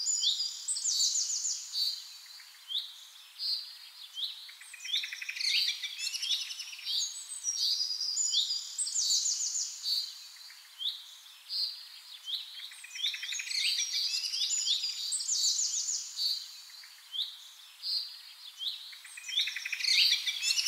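Birds chirping and singing: short sweeping chirps and rapid trills, in phrases that come back every few seconds.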